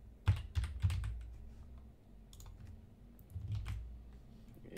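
Typing on a computer keyboard: irregular key clicks, a quick cluster in the first second and more scattered through the rest.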